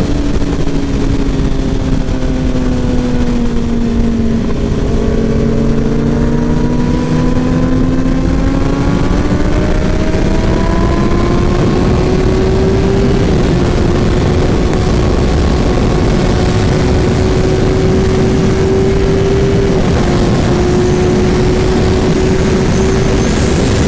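Kawasaki Ninja ZX-10R's inline-four engine under way: its note sags for a few seconds, climbs slowly as the bike picks up speed, then holds almost steady at a cruise. Heavy wind rush on the microphone runs under it.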